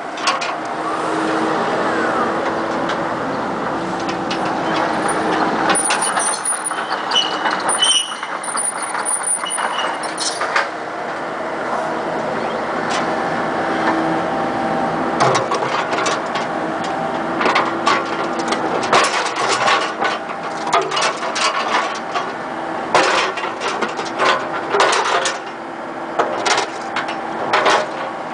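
Komatsu PC78MR-6 compact excavator running with a steady hum while its hydraulic arm and bucket are worked, with brief high squeaks early on. In the second half come many sharp metal clanks and knocks as the bucket strikes another steel bucket.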